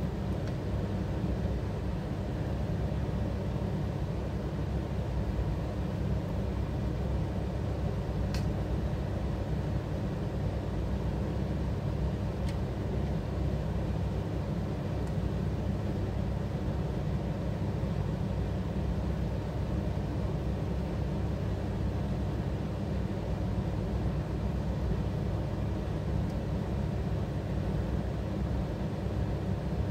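A steady low rumble of a running machine, with a couple of faint clicks, one about eight seconds in and another about four seconds later.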